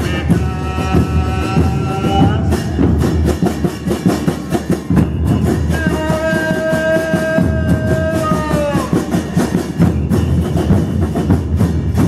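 Murga drum band of bass drums beating a fast, driving rhythm, with two long held notes over it, the second dropping in pitch as it ends.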